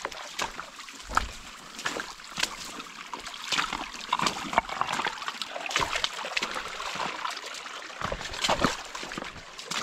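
Footsteps on creek-bed rocks and gravel, with dry branches and brush crackling and rustling as someone pushes through thick willows. A small creek trickles underneath.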